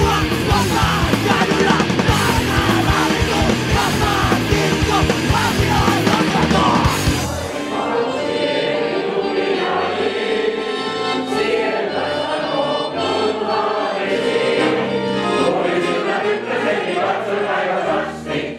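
Live punk rock band playing loud and fast, with bass guitar and drums. About seven seconds in it cuts to softer music with sustained notes.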